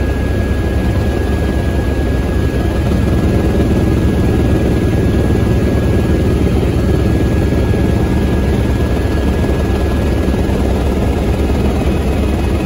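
Helicopter in flight heard from inside the cabin: a loud, steady low drone of rotor and engine, with a thin steady whine above it.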